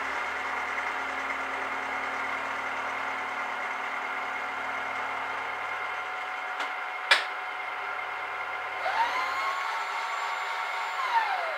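Mill-drill running with a four-flute end mill taking a cut at 600 rpm, a steady cutting noise over the motor hum. A sharp click comes about seven seconds in; near the end the low hum stops and a whine rises, holds and falls away.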